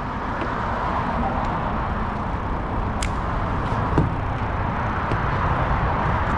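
Steady wind rush on the microphone, with a sharp click about three seconds in and a knock about four seconds in.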